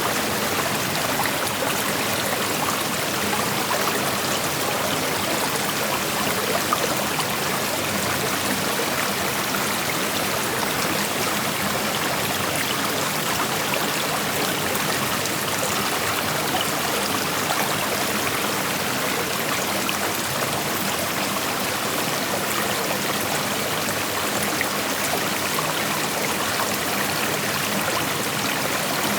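Creek water flowing over rocks in a steady rushing and trickling.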